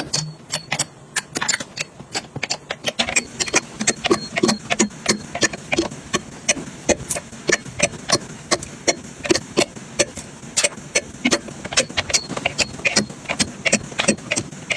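Rapid, irregular clicks, taps and knocks, several a second, from small items being handled and set down while a dresser and vanity are organized.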